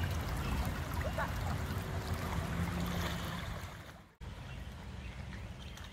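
Shallow floodwater running over a paved path: a steady rush of water that fades and cuts off abruptly about four seconds in, followed by a quieter rush.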